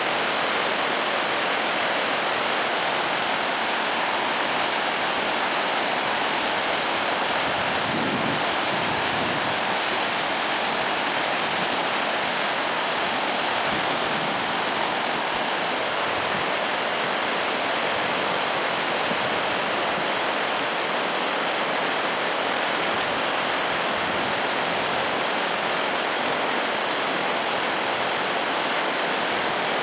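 Floodwater rushing and churning through breaches cut in a dirt road embankment, a steady, unbroken noise of turbulent water.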